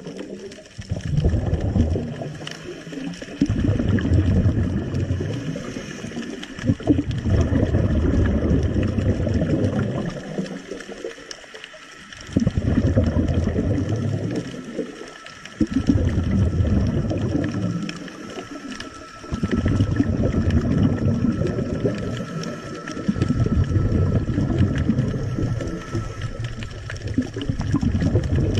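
A scuba diver's regulator exhaust bubbles rumble past the camera underwater in bursts of two to three seconds, one for each breath out, about every four seconds, with short quiet gaps for the in-breaths.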